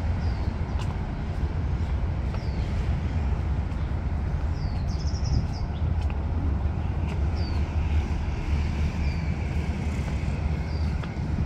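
Steady low rumble of road traffic, with a bird giving short high chirps that drop in pitch, one every second or two and a quick run of them about five seconds in.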